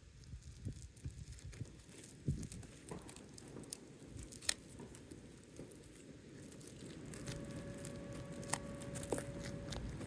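An asphalt roof shingle being handled and worked: scattered scraping, crinkling and small taps. A faint steady hum joins about seven seconds in.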